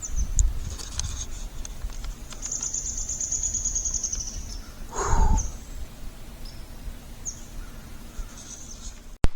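Woodland sounds: a bird's high, rapid trill lasting about two seconds, a few other short high chirps, and about five seconds in a brief, louder, lower call that falls in pitch. A low rumble runs underneath.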